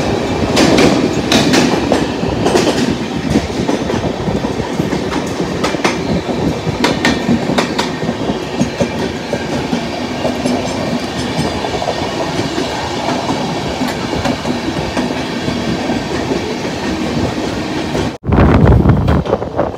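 Suburban local train running at speed, heard from its open doorway, with an express train running alongside on the next track. The wheels clatter over rail joints and points above a steady loud rumble. Near the end the sound cuts out for an instant and comes back louder.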